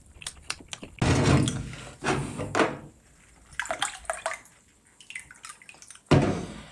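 Close-miked sips and gulps of a drink from a glass, in a few loud swallows with small wet mouth clicks between them. A sharp breath out comes near the end.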